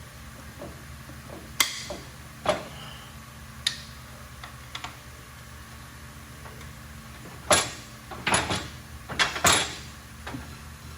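Scattered sharp knocks and clatters of hand work in a garage, a few early and a louder run of them from about halfway on, over a steady low hum.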